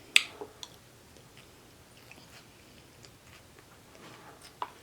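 Faint chewing close to the microphone, with a sharp wet mouth click just after the start and a few softer clicks.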